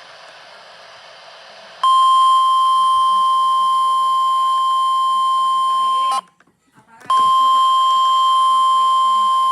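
NOAA Weather Radio warning alarm tone, a loud steady single-pitch tone near 1050 Hz. It starts about two seconds in, drops out for about a second, then sounds again. It is the alert signal that comes before a warning is read out.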